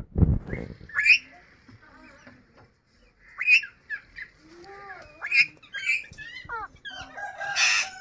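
Indian ringneck parakeet calling: a series of short chirps and whistled notes, several sliding down in pitch, with a harsh squawk near the end. A low thump at the very start.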